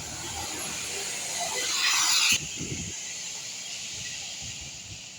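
A vehicle passing close on the road: a rush of noise builds and cuts off abruptly about two and a half seconds in, followed briefly by a low rumble. No horn sounds.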